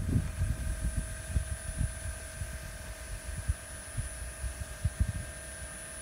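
Electric hydraulic pump of a 1/14 metal RC mining dump truck whining steadily as the raised tipper bed is lowered, with low wind buffeting on the microphone.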